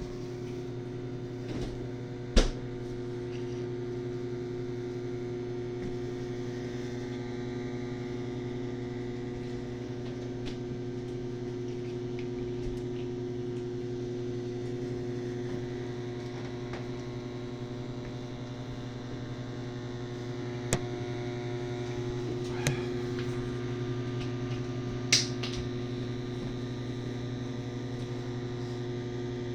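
GE JES1145SH countertop microwave oven running with a steady hum. A few sharp clicks cut through, the loudest about two seconds in and three more near the end.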